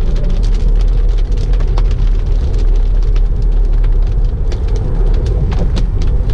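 Cabin sound of a Tesla Model 3 on a wet highway: a steady low rumble of tyres on the rain-soaked road, with many sharp ticks of raindrops hitting the glass.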